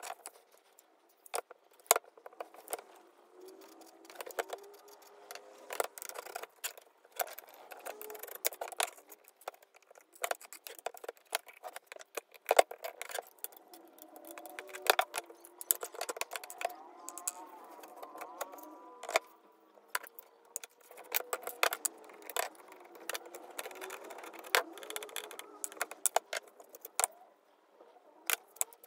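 Irregular metal clicks, clinks and scrapes as a rusty rifle is taken apart by hand: pliers working corroded screws, and small screws, washers and steel parts knocking against each other and being set down. Faint squeaks come and go, loudest about two thirds of the way through.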